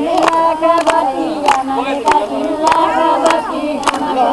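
Group of voices singing a devotional chant together, with a sharp struck beat a little under twice a second.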